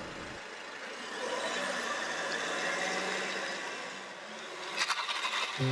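A car driving on the street, its engine and tyre noise swelling over about a second and fading a few seconds later. A few quick clicks come near the end.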